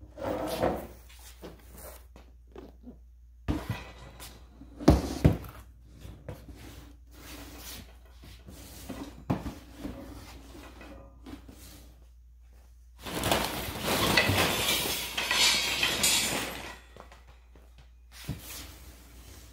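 A large cardboard box being handled on a wooden dresser: a few knocks and thumps as it is tipped and set down, then a few seconds of rustling and scraping.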